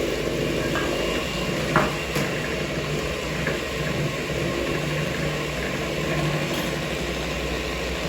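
Electric mixer running steadily as it beats a thick cake batter, with a single knock about two seconds in.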